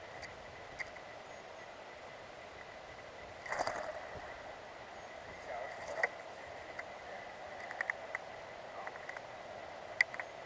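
Steller's jay flapping its wings close by on a wooden log, in two short bursts. Around them come a few sharp taps of its feet and bill on the wood.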